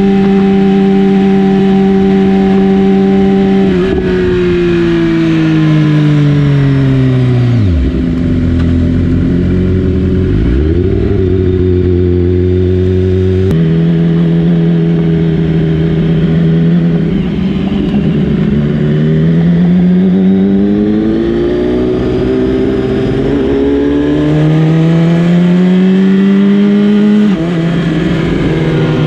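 BMW S1000RR's inline-four engine heard from on board: the revs fall away as the bike slows, run low for a few seconds, then climb repeatedly under acceleration, the pitch dropping at each gear change, over wind noise.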